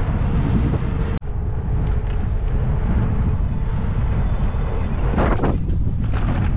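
Wind rushing over the helmet-mounted camera's microphone, with road noise, as an e-bike rolls fast down an asphalt road. The sound drops out for an instant about a second in, and the wind swells briefly about five seconds in.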